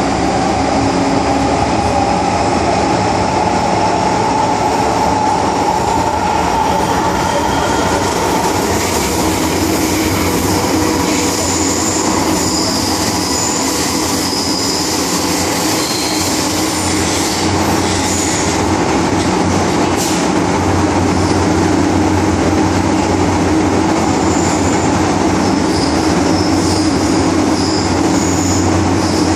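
MTR M-Train electric multiple unit heard from inside a passenger car while running: a loud, steady rumble of wheels on rail. Faint high-pitched squeals come and go from about eleven seconds in and again near the end.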